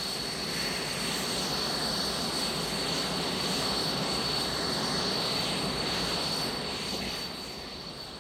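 Jet engines of T-38 Talon trainers running: a steady high-pitched turbine whine over a rushing noise, easing off near the end.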